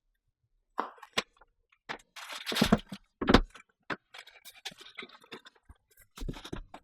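Packaging and components being handled and set down: irregular clicks, knocks, scraping and rustling, starting about a second in.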